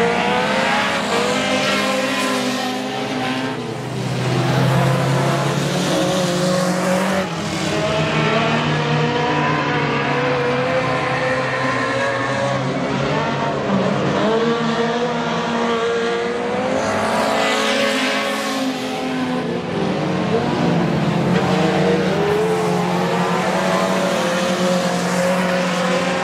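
Several dirt-track race car engines running together as the cars circle the oval. Their pitch rises and falls as they pass.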